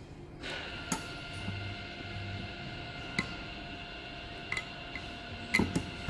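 Manual perfume bottle crimping machine worked by hand: sharp metallic clicks as its lever and press head move, with a louder cluster of clanks near the end as the collar is pressed onto the bottle. A steady high tone runs underneath from about half a second in.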